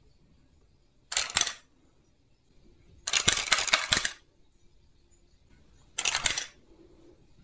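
Plastic cat teaser toy gun firing its feather and ball out on a cord and snapping them back into the body: three bursts of rapid plastic clicking, the middle one about a second long.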